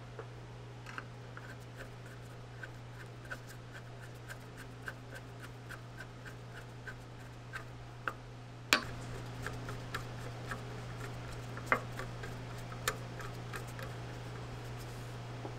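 Screwdriver turning small brass screws into the cast-iron base plate of a Faraday fire bell mechanism: a string of light metallic clicks, about two a second, with a few sharper knocks, the loudest about nine seconds in, over a steady low hum.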